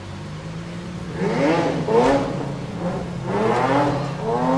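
Single-turbo Toyota 2JZ inline-six, swapped into a GT86, idling and then revved in several throttle blips from about a second in. The pitch climbs and falls back with each blip.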